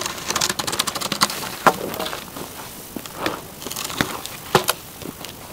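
Wood campfire crackling and popping in a metal fire grate, mixed with the scrape and knocks of a long dry tree branch being carried and set down on the dirt. A handful of louder single pops stand out among the dense crackle.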